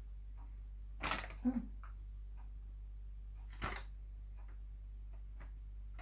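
Cardboard coffee-pod boxes being handled and set down on a wooden counter: a few short knocks and rustles, about a second in and again a little past halfway, over a faint low hum.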